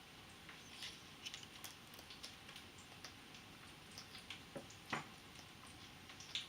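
Amazon parrot's beak nibbling and crunching a Brussels sprout: scattered faint, irregular clicks and crackles, with a slightly louder snap about five seconds in.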